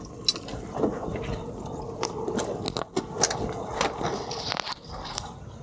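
Irregular clicks, knocks and scrapes of gear being handled at a boat's gunwale, over a steady hum through most of it.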